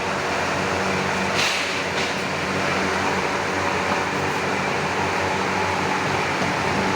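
Forging-shop machinery running: a steady mechanical hum and hiss, with brief hissing bursts about a second and a half and two seconds in.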